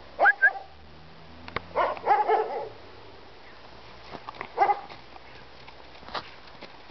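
Three-month-old German shepherd puppy giving short, high barks and yips: two quick ones at the start, a burst of several about two seconds in, and one more a couple of seconds later.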